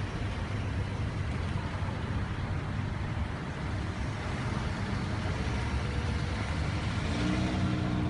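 Road traffic: steady noise of cars going by. An engine's hum grows a little louder near the end.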